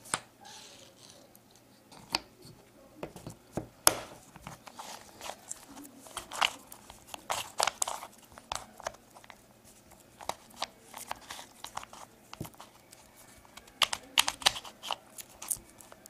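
Home-made Rubik's cube being turned by hand: irregular clicks and scraping rattles of its layers turning, in quick clusters with short pauses between.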